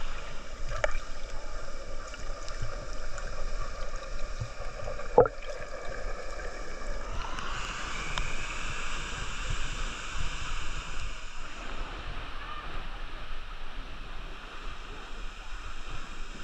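Steady rushing of a waterfall pouring into a river pool, with water moving close by. One sharp, short sound stands out about five seconds in, and the rush grows brighter a couple of seconds later.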